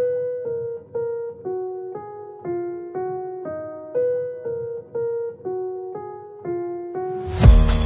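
Background music: a plain keyboard melody of single notes, about two a second. Near the end a loud drum beat with heavy bass comes in.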